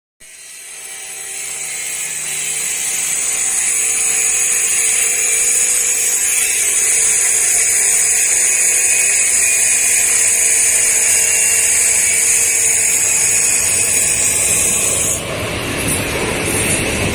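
A loud, steady high-pitched whine for most of the stretch. About fifteen seconds in, it gives way to the broad rushing rumble of a KTM ETS Class 93/2 electric train passing close by on the track.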